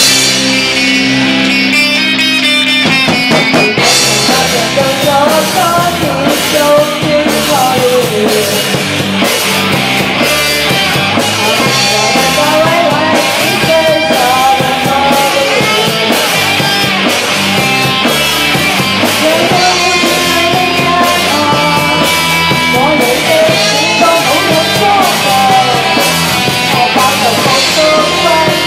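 Rock band playing live: electric guitar, bass guitar and drum kit, with a woman's lead vocal coming in a few seconds in.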